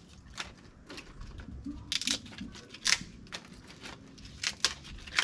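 A handful of sharp, irregularly spaced clicks and knocks of dry firewood sticks being handled and set in place for a fire.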